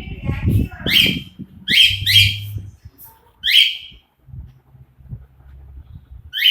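Pet parrot giving short, sharp screeching calls, about five of them with pauses between, each sweeping downward. Low rumbling noise runs under the first couple of calls.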